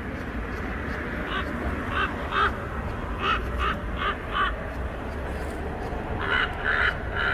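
Crow-like cawing: a run of short, harsh calls, about seven in the first four and a half seconds, then a pause and a few more near the end, over a steady low background hum.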